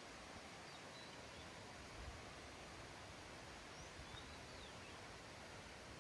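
Faint bird chirps, a few short whistled notes about a second in and again around four seconds in, over a steady soft hiss of outdoor background noise.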